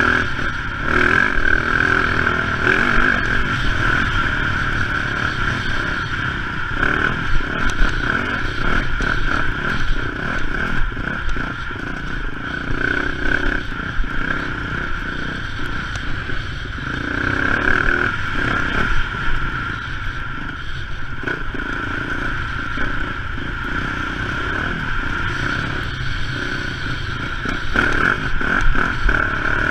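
Dirt bike engine running under way on a rough trail, with frequent short knocks from the bike jolting over the ground.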